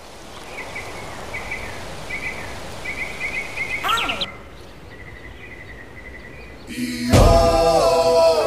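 Steady outdoor background noise with small birds chirping repeatedly, dropping quieter about four seconds in. Near the end loud music comes in with sustained, sliding tones.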